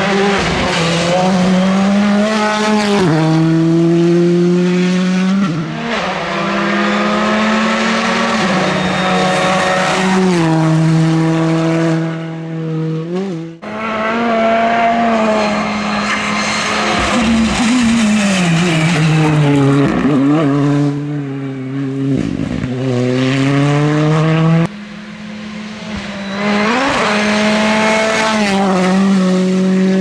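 Hyundai i20 rally car's turbocharged four-cylinder engine revving hard through the gears on a stage. The pitch climbs in each gear and drops at each quick upshift. The sound cuts off sharply twice, near the middle and about three-quarters in, as a new pass begins.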